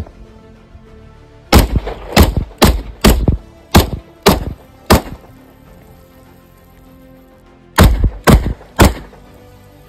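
Glock 20 Gen 5 pistol firing 10mm rounds. Seven quick shots about two a second come a second and a half in, then a pause of nearly three seconds, then three more shots.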